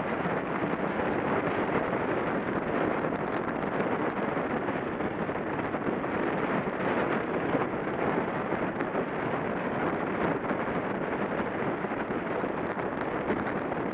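Steady rush of wind on the microphone of a camera mounted on a track bike riding at about 28 mph, mixed with the rolling noise of the tyres on the wooden track.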